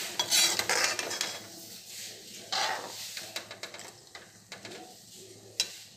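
Grated amla frying in sesame oil in an iron kadhai, sizzling loudest in the first second and a half and then quieter. A metal skimmer stirs the mash, giving scattered clicks and scrapes against the pan, with one sharp click near the end.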